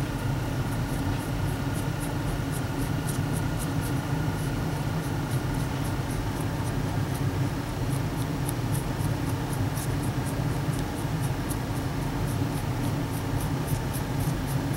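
Light, irregular ticking of a fine paintbrush dabbing oil wash onto a hard plastic action figure, several strokes a second, over a steady low hum.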